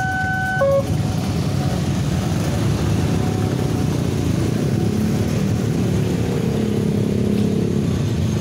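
Level-crossing warning alarm, an alternating two-tone electronic signal, cuts off about a second in; then many motorcycle engines run and pull away as traffic crosses the tracks.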